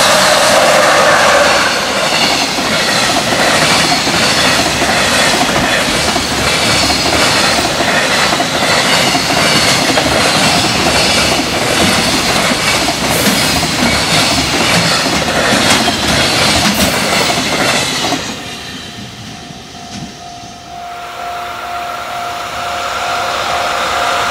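Long freight train of container wagons passing a level crossing at speed, with a loud, rapid clickety-clack of wheels over the rail joints. About three-quarters of the way through it cuts off sharply to a much quieter background with a steady tone.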